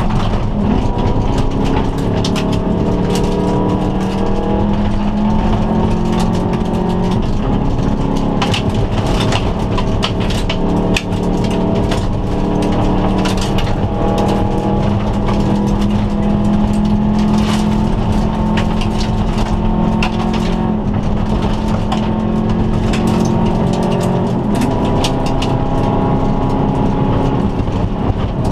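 Inside the cabin of a 2002 Subaru Impreza turbo wagon rally car at stage pace on gravel. The turbocharged flat-four engine revs up through the gears, its pitch climbing and then dropping at each shift, with stones clicking and knocking against the car throughout.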